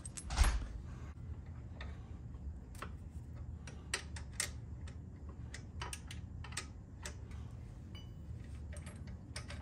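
Irregular light metallic clicks and taps of a half-inch wrench working an exhaust mounting bolt loose on a motorcycle, with one dull knock about half a second in.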